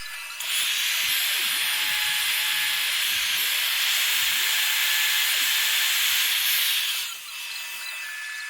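Dumore tool post grinder's wheel grinding a steel thrust-bearing washer on a lathe: a steady, loud hiss from about half a second in until about seven seconds. Then the wheel comes off the work and only the motors' hum remains.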